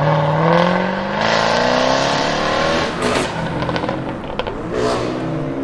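Jaguar F-Type SVR's supercharged V8 accelerating hard, its exhaust note rising in pitch for nearly three seconds. The rise then breaks off, and a few sharp exhaust crackles follow, after which the engine runs on at a lower note.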